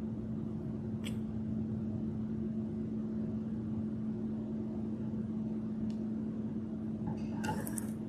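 Steady low room hum, with a faint click about a second in and a short sharp knock near the end as a plastic squeeze bottle of tempera paint is set down on the table.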